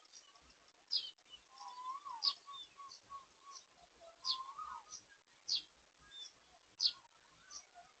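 Birds calling: a short, high, sharply falling note repeats every second or two, and a lower, wavering phrase sounds twice in the first half.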